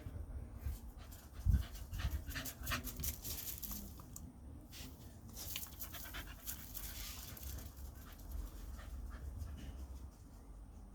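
Repeated short, breathy throat-clearing noises in irregular bursts, the loudest about a second and a half in.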